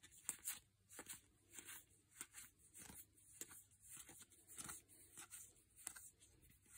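Trading cards being slid one at a time off a stack and onto another in the hands: faint, short papery swishes and light snaps, about one or two a second.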